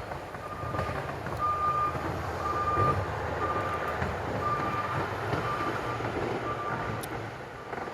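Reversing alarm of a heavy vehicle beeping about once a second, over the low rumble of its engine.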